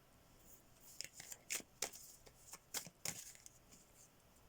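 Tarot cards being handled: a faint series of short card flicks and slides, about half a dozen over a couple of seconds.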